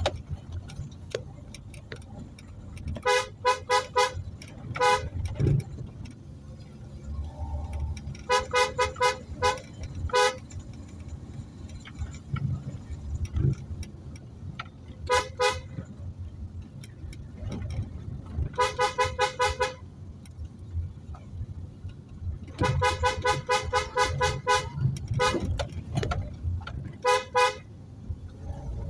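A car horn tapped in bursts of short, rapid beeps, a burst every few seconds, with the car's engine and tyre rumble underneath. The horn warns oncoming traffic on a narrow one-way uphill road with blind bends.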